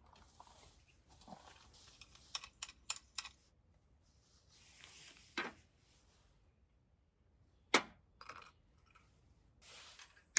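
Small objects being handled: a quick run of four light clicks, brief rustles, then one sharper knock, the loudest sound.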